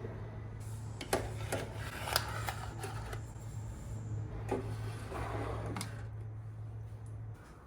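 Kitchen handling sounds, with scattered clicks, light knocks and rustling over a steady low hum that cuts off near the end.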